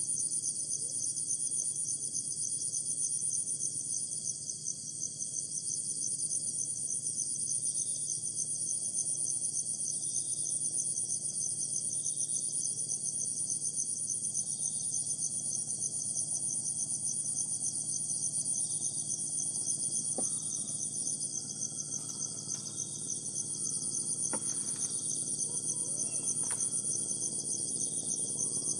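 Steady, high-pitched chorus of insects trilling continuously, with a fainter tone that swells every few seconds; a few faint ticks in the second half.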